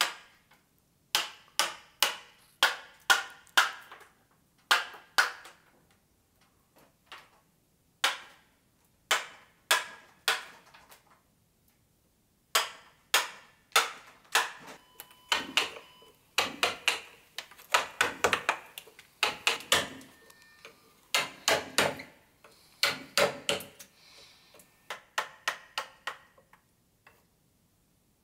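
Mallet striking a carving chisel into wood, sharp knocks with a short ring, in uneven runs of two to four with brief pauses, coming thicker in the second half.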